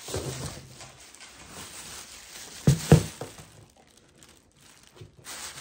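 Rustling and crinkling from something being handled, with two sharp knocks close together about three seconds in.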